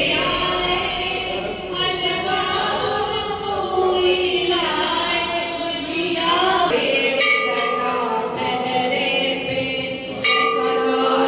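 Devotional singing: a chorus of voices chanting a hymn as music, with bending and held sung notes.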